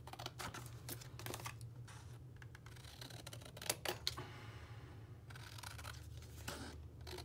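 Scissors snipping through a sheet of paper, with the paper rustling and crackling as it is handled: a few short scattered snips and clicks.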